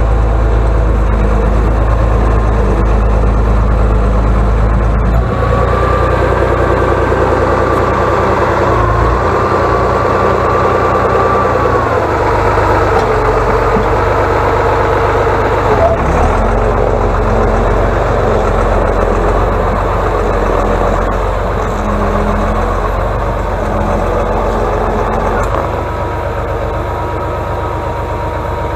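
Atlas 1602 wheeled excavator's diesel engine running steadily as the machine drives and pushes snow with its front blade. A higher whine rises over the engine for several seconds and comes back near the end.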